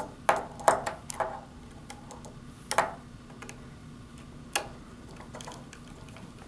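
Short sharp clicks and taps from wiring work at a screw terminal block: about six in the first three seconds, then one more a little past halfway.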